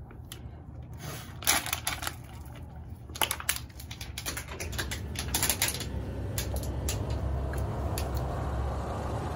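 Sharp clicks and crinkles of a plastic water bottle being handled as its cap is screwed tight and the bottle is set down, sealing dry ice inside. Then a steady chirring of crickets.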